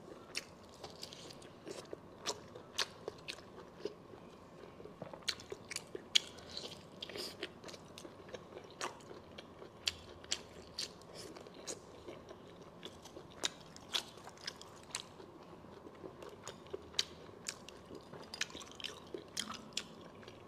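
Close-miked chewing of cooked large intestine (大肠头), with irregular sharp mouth clicks throughout.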